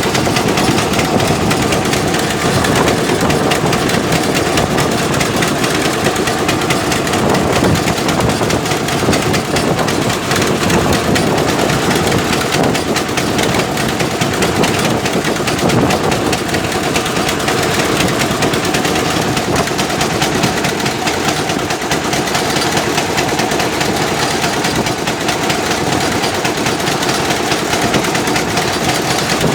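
Heavy machinery engine running steadily under load, with a dense, fast rattle throughout.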